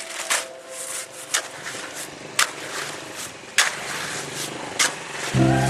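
Sharp knocks of a tool striking, about one every second, over a steady background hiss. A low, steady hum comes in suddenly near the end.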